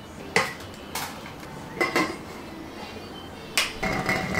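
Metal cookware clinking and knocking: a few sharp clanks about a second apart as a pot and its lid are handled. A steady hum starts near the end.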